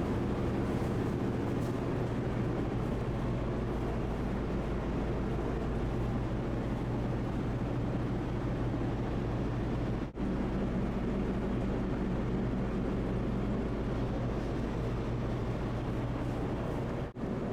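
Small ferry boat's engine running steadily with a low, even hum. The sound drops out briefly about ten seconds in and again near the end.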